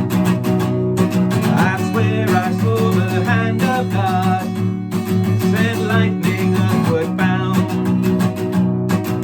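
Song instrumental: acoustic guitar strummed in a steady rhythm, with a wavering lead melody line over the chords through the middle of the passage.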